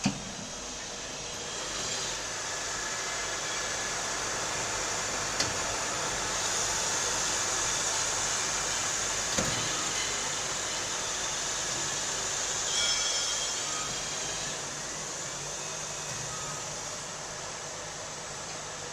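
Index MS 32 B CNC multispindle lathe running, a steady hissing machining noise that grows a little louder through the middle, with a few sharp clicks.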